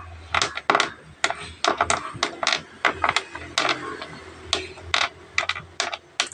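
Sharp, irregular clicks and clacks of small magnetic black stones snapping against a flat steel plate and knocking on a hard tabletop as they are picked up and set down.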